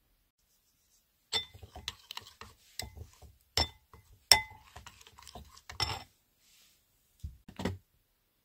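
A metal spoon clinking against a glazed ceramic bowl while stirring a paprika spice mixture: a run of sharp, ringing clinks, irregular and a fraction of a second apart. Near the end come two duller knocks.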